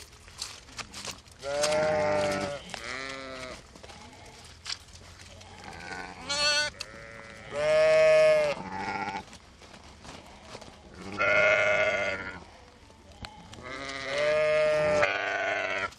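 Sheep bleating again and again, about half a dozen separate calls with a quavering tone, some pitched higher than others.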